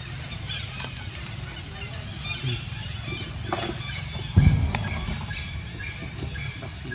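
Outdoor animal ambience: short high-pitched calls come and go over a low rumble, with one dull thump a little past four seconds in.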